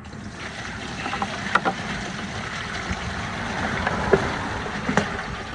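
Water pouring into a bucket: a steady splashing hiss that builds for about four seconds and then eases off, with a few small knocks.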